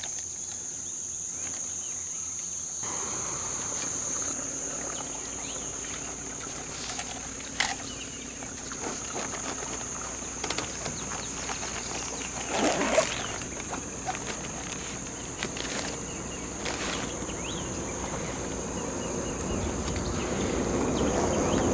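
Insects droning as one steady high-pitched tone, with a few scattered clicks and knocks. A low noise grows louder near the end.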